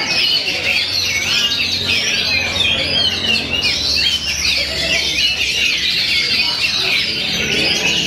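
Many Oriental magpie-robins singing at once: a dense, unbroken chorus of quick overlapping whistles, trills and chirps, over a steady low hum.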